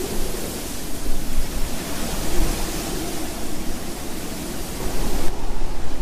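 Strong wind: a loud, continuous rush of wind that swells and eases in gusts over a low rumble. Its upper hiss drops away suddenly near the end.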